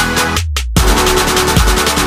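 Electronic dance music with a steady beat. About half a second in, everything but the bass drops out for a moment, then the full beat comes back in.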